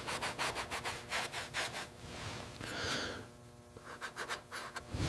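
Quick, short abrasive rubbing strokes of hand sanding, several a second, with a brief hiss near the middle and the strokes returning near the end.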